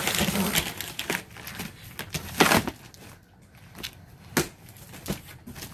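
Box cutter slitting the packing tape along a large cardboard box's seam, then the stiff cardboard flaps being pulled open with a run of crackles and knocks, the loudest about two and a half seconds in.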